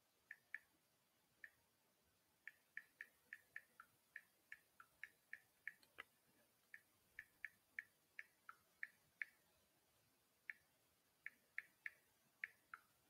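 Faint typing clicks: irregular short taps of a keyboard, coming in runs of about two to three a second with a couple of brief pauses.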